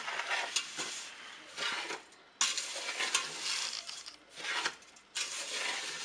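Sugar-coated blueberries being stirred in a stainless steel stockpot. The utensil scrapes and rasps against the pot in uneven strokes, with two short pauses.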